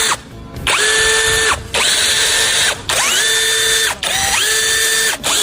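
A handheld electric power tool spinning up to a steady whine in about five runs of roughly a second each, with short pauses between.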